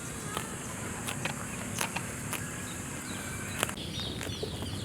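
Quiet farmyard ambience between cow moos: a steady low hiss with a handful of sharp clicks or knocks, and faint bird chirps near the end.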